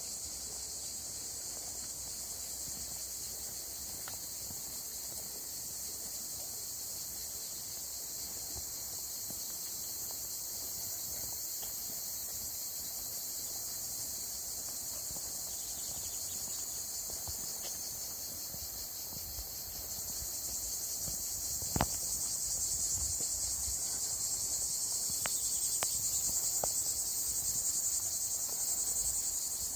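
Steady, high-pitched insect chorus, a shrill pulsing buzz that grows louder in the second half. A single sharp click cuts in about two-thirds of the way through.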